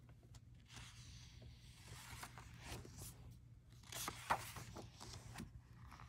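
Paper pages of a paperback book being turned and pressed flat by hand: soft rustling swishes, the loudest about four seconds in.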